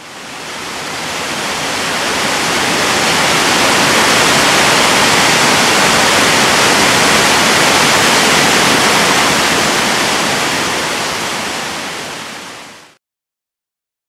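Roar of a broad curtain waterfall, many falls about 20 m high crashing onto rocks: a dense, steady rush of water. It fades in over the first couple of seconds and fades out near the end.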